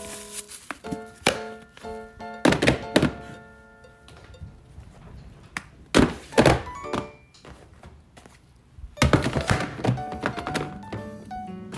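Light background music of short plucked notes, cut through by loud thumps and clattering in three clusters, about two and a half, six and nine seconds in.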